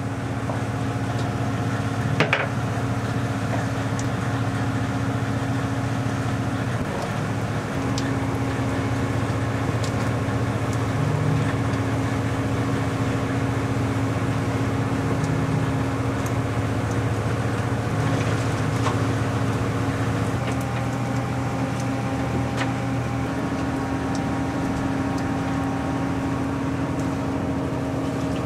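Engine of a wooden seine boat running steadily, a constant low hum heard from the open deck, with a single knock about two seconds in.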